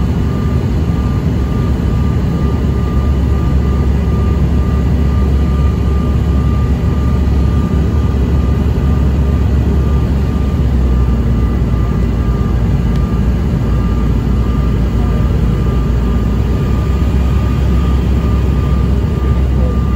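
Cabin noise inside a Bombardier CRJ-900 on final approach: a steady low roar from the airflow and the rear-mounted CF34 turbofans, with a thin, steady whine above it.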